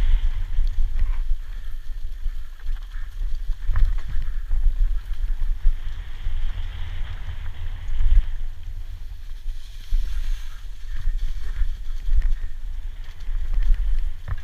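Downhill mountain bike descending a dirt trail at speed: a steady low rumble of wind buffeting the handlebar-mounted action camera and the tyres on the ground, with a few knocks as the bike hits bumps.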